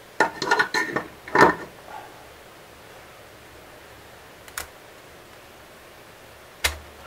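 Metal motorcycle engine parts clinking and clattering as they are handled during engine disassembly. A quick run of clinks comes in the first second and a half, then single clicks later, the last with a dull knock.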